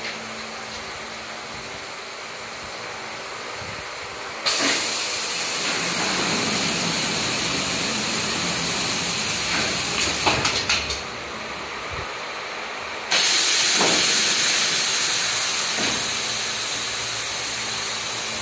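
Vacuum-forming machine's air system cycling: a sudden loud rush of hissing air starts about four and a half seconds in and runs for about six seconds, a few sharp clicks follow near ten seconds, then a second loud hiss of air starts abruptly about thirteen seconds in and continues to the end. A steadier, quieter hiss lies under it throughout.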